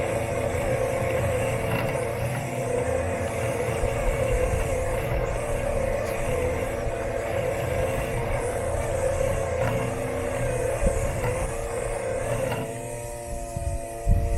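Robot lawn mower's electric motors humming steadily with a rushing hiss and low rumble as it drives over the lawn, heard from a camera taped to the mower's body. About three-quarters of the way through the hiss drops away and the motor hum stands out more cleanly, with a few knocks near the end.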